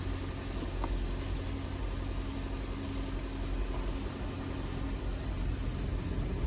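Chevy Equinox engine idling steadily, a low even hum.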